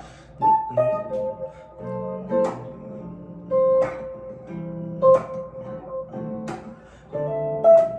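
Solo guitar playing a jazz chord progression: plucked chords with single melody notes ringing between them.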